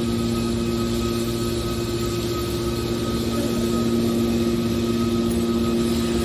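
Hydraulic metal baler's pump unit running steadily: a constant machine hum with a steady whine, unchanging in pitch and level.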